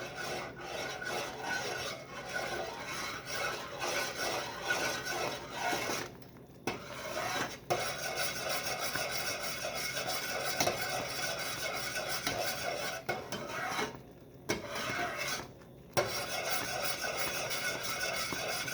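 A spoon scraping and rubbing around the bottom of a pan as boiling fudge mixture of butter, sugar and evaporated milk is stirred constantly at a full rolling boil. It stops briefly a few times, about six, fourteen and fifteen and a half seconds in.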